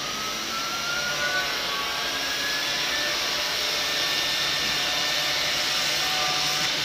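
Handheld electric disc sander running steadily against the carved panel of a wooden door, a high motor whine over the hiss of abrasive on wood. The whine rises in pitch over the first few seconds.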